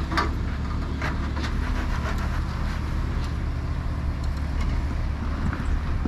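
Off-road 4x4's engine running steadily at low revs while crawling over rock, with scattered crunches and clicks from the tyres and running gear, heaviest in the first second.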